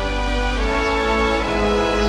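Film-trailer soundtrack music: slow orchestral music with long held notes.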